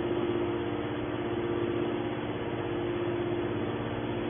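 Horizontal hydraulic metal baler's motor and pump running: a steady hum with one strong low tone over an even mechanical noise.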